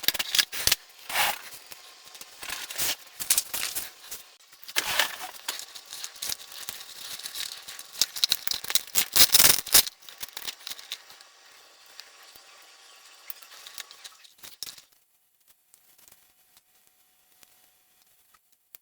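Irregular clicks, rattles and rustling from parts of a foam RC model plane being handled, busiest over the first ten seconds, then thinning out and fading to near silence about fifteen seconds in.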